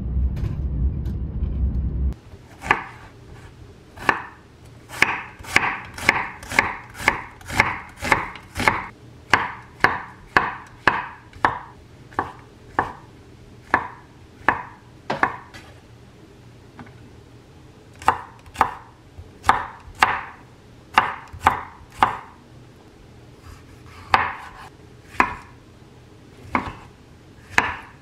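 Chef's knife slicing mushrooms and tomatoes on a wooden cutting board: a long series of sharp knocks, quick in runs and then sparser with pauses. It opens with about two seconds of steady, low train rumble heard from inside the carriage, which cuts off suddenly.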